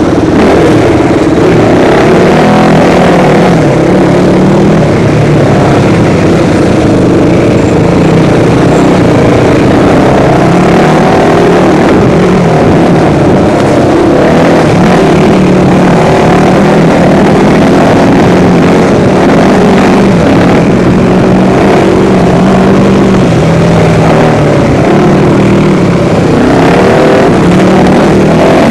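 Dirt bike engine running under load while riding a trail, its pitch rising and falling with the throttle. The sound is loud and continuous.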